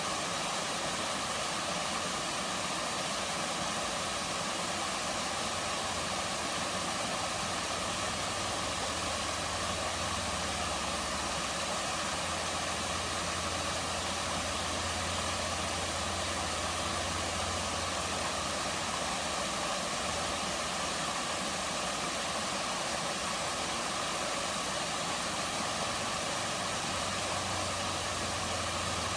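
Waterfall pouring steadily into a pool, a constant rushing hiss of falling water, with a low rumble that swells in the middle and fades again.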